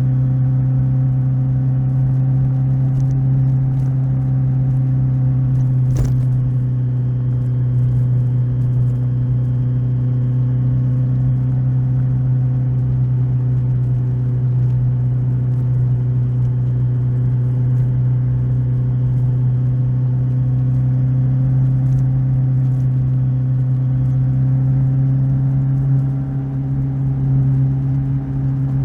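Kawasaki Z1000SX inline-four motorcycle engine running at a steady cruise, holding a constant pitch, easing off briefly near the end. A single sharp click about six seconds in.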